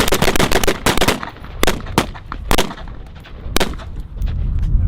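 Rifle shots from several shooters on a firing line: a quick run of overlapping cracks in the first second, then single shots spaced about half a second to a second apart, thinning out toward the end.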